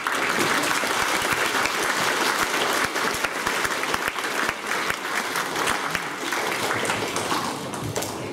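A large audience of schoolchildren applauding, many hands clapping at once, dying down near the end.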